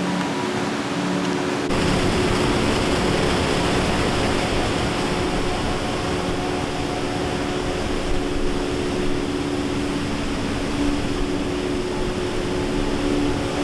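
Steady roar of Niagara Falls' falling water, coming in fuller about two seconds in, under a soft background music drone of held notes.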